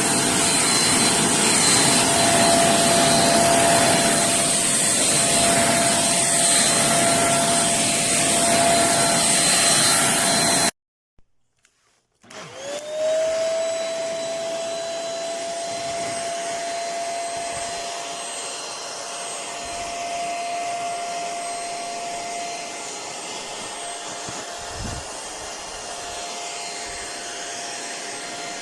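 Handheld bed vacuum cleaner's motor running with a steady whine, then stopping abruptly about eleven seconds in. About a second and a half later it starts up again, its whine rising to speed, and runs steadily, a little quieter than before.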